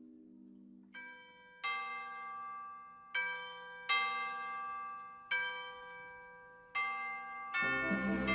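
Background music: a slow run of single bell-like struck notes, each ringing out and fading, about six in all. Near the end fuller instrumentation comes in.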